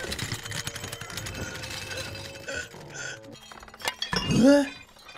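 Orchestral film score with light clinking and rattling of porcelain dishes and glassware. A short pitched vocal cry that rises and falls comes about four seconds in.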